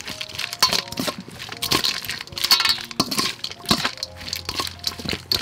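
Metal spoon clinking and scraping against a stainless steel bowl while a salad is tossed, many quick irregular clinks.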